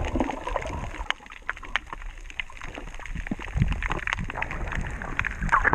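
Underwater sound through an action camera's waterproof housing: a muffled low rumble of water movement, dotted with many scattered sharp clicks and crackles.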